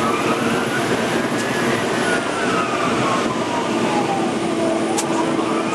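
Fire engine siren sounding a slow wail, heard from inside the cab: the tone rises, falls slowly, then starts rising again near the end. Underneath is the steady drone of the engine and road noise.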